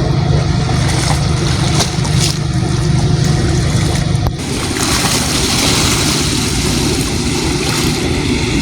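An engine running steadily with a low hum. The hum drops away about four seconds in, leaving a steady hissing noise.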